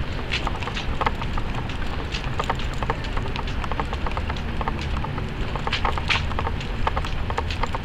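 A smooth collie walking in a biothane assistance harness: many quick, irregular clicks and clinks from the harness's metal fittings and footsteps, over a steady low rumble of handling noise.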